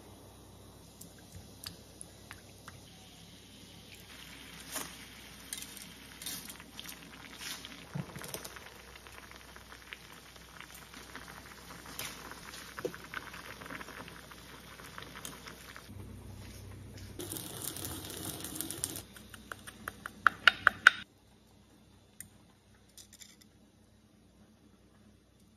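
Home cooking sounds: liquids poured into a ceramic bowl, then noodles boiling in a small saucepan and stirred with a utensil, with scattered light clinks. A quick run of sharp clinks comes about twenty seconds in, then only faint scraping of a fork mixing sauce in the bowl.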